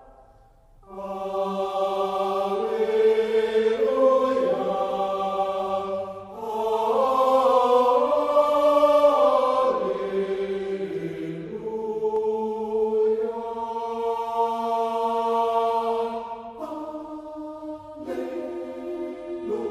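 A choir singing held chords that shift in steps, swelling and easing, entering after a brief pause about a second in.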